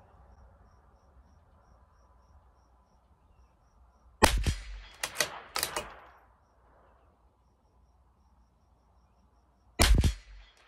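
Two .22 LR rimfire shots from a CZ 457 LRP bolt-action rifle, about five and a half seconds apart. The first shot is followed by three quick clicks as the bolt is worked to chamber the next round; the second comes near the end.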